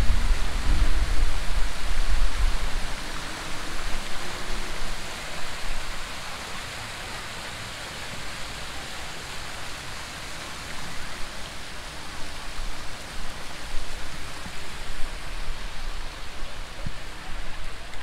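Steady rushing of water pouring down an artificial waterfall, with a deep rumble over the first few seconds that then fades.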